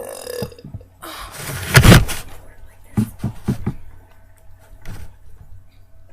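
A girl's loud burp after drinking fizzy Dr Pepper, swelling to its loudest about two seconds in, followed by a few short, weaker sounds.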